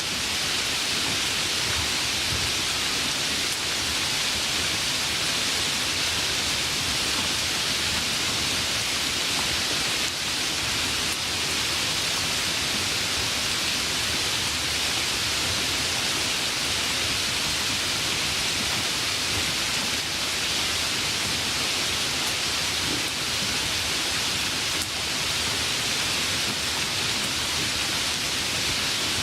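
Light rain falling steadily: an even, unbroken hiss with no distinct drops or thunder standing out.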